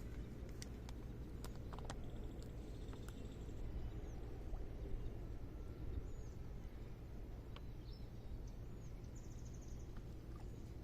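Outdoor ambience: a steady low rumble with faint bird chirps and short rapid trills over it, and a few small clicks.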